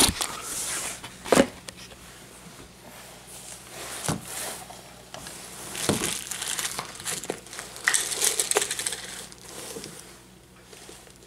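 Plastic containers being handled on a stone countertop: a shaker cup and a tub of creatine powder give scattered knocks and clicks of lids and plastic, with crinkling of a plastic bag. The handling fades near the end.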